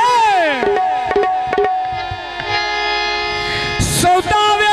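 Punjabi folk singing through a PA system: a held male vocal note slides down in pitch and repeats several times as an echo over steady sustained tones, with light drum knocks. A brief burst of noise comes just before the end.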